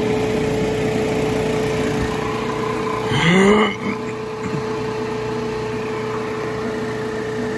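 Refrigerant recovery machine switched on and running with a steady hum, its compressor pulling R-410A out of a heat pump on the fast-recovery setting. About three seconds in, a brief louder rising sound cuts across it.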